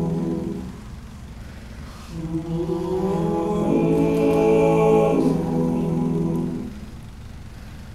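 All-male a cappella group singing sustained chords in close harmony. The first chord fades about a second in, and a second one swells in about two seconds in and is held until near the end.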